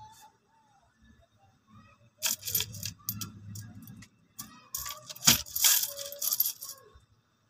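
Coins jingling and clinking in a string of rattly bursts from about two seconds in until near the end, with the sharpest clink a little past five seconds.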